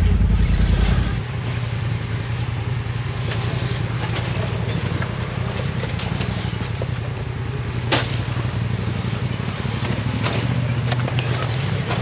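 Side-by-side UTV engine running steadily at low speed, the low rumble easing off about a second in. Scattered sharp knocks and clunks, the loudest about eight seconds in, come from the machine lurching down a rocky washed-out creek bed.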